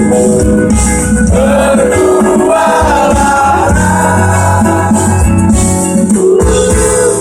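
Live acoustic band music, loud and steady, with singing over guitar.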